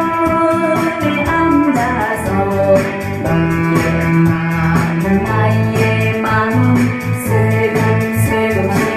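A song playing: singing over instrumental backing with a steady bass line.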